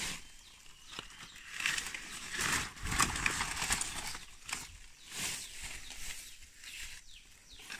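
Dry bamboo culm sheaths and leaf litter rustling and crackling as a sheath is pulled from the undergrowth and handled, in several irregular bursts.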